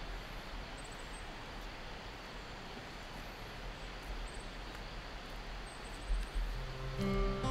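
Outdoor ambience: a steady hiss of open air with a low rumble, like light wind on the microphone, and two faint high chirps, about a second in and again near the end. Acoustic guitar music comes in near the end.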